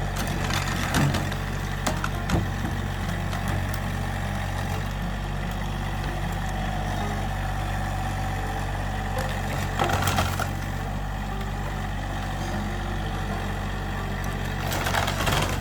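A vehicle engine idling steadily, with loud cracks and crunches of breaking timber about a second in, at about two and a half seconds, around ten seconds and again near the end.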